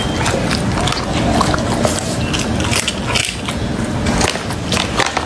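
A dog eating crunchy grilled shark fillet close to the microphone: dense, irregular crunching and biting clicks, with its mouth and the food scraping on a ceramic plate.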